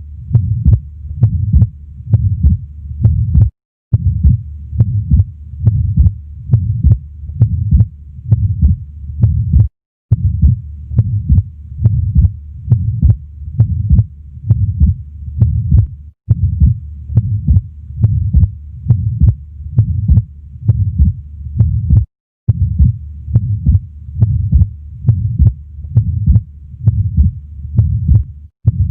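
Heart sounds heard through a stethoscope at the left base (pulmonic area), steady regular beats with a systolic flow murmur from an atrial septal defect. The recording cuts out briefly and repeats about every six seconds.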